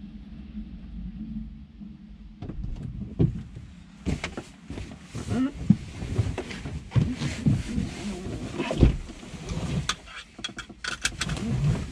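Thumps, knocks and clicks with clothing rustle as a pilot climbs into the cabin of a parked, engine-off Robinson R22 helicopter and settles into the seat. The sounds begin a couple of seconds in and grow busier about four seconds in.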